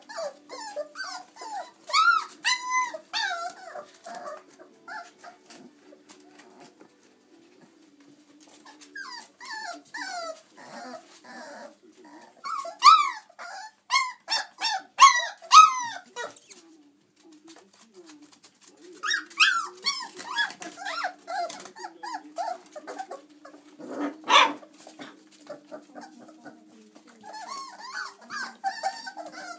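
Chocolate Labrador Retriever puppies, about four weeks old, yipping and squeaking as they play-fight, in bursts of short high calls with pauses between. A sharp knock is heard about two-thirds of the way through.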